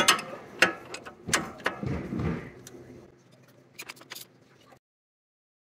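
Hand tools clinking and knocking against the crankshaft pulley as a steel pulley-holder tool and a ratchet are fitted onto the pulley bolt. There is a quick series of sharp metal clanks, then a few lighter clicks about four seconds in.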